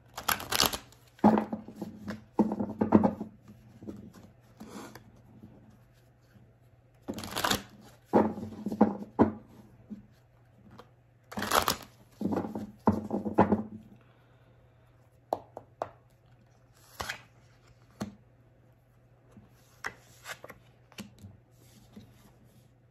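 A deck of tarot cards being shuffled by hand in several quick crackling bursts, with pauses between them. In the second half come fewer and lighter single clicks and taps as cards are handled.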